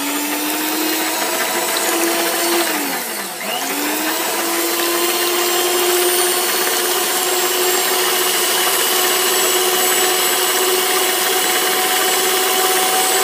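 Electric stand mixer running at speed, its twin beaters whisking raw egg whites at the start of whipping them to stiff peaks. Steady motor whine over a whirring hiss; the pitch sags and climbs back about three and a half seconds in.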